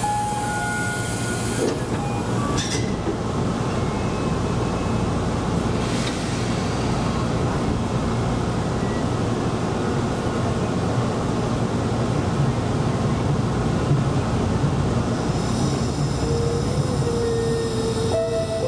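Steady rumble of a Tobu Koizumi Line local electric train, with a faint steady tone coming in near the end.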